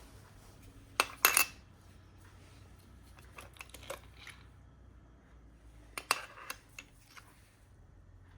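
Metal hand tools and parts clinking and clicking as they are handled, in three clusters of sharp knocks: the loudest about a second in, more around three to four seconds, and another group around six to seven seconds.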